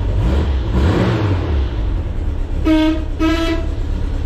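A vehicle horn sounds two short toots, just under a second apart, over a loud, steady low engine rumble.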